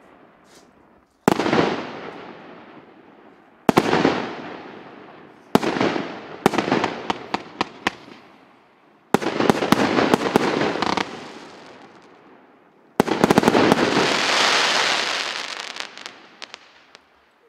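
Happy Family HF8637 multi-shot fireworks cake firing shells that burst overhead one after another: five sharp bangs a few seconds apart, each fading out in crackling. The last bang trails into a long, hissing crackle that dies away near the end.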